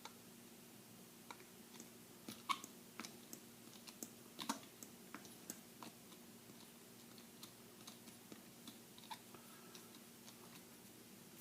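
Scattered light clicks and taps of a gunsmith screwdriver and steel pistol parts being handled while a Desert Eagle's safety screw is worked loose, the loudest clicks in the first half and sparser ones later, over a faint steady hum.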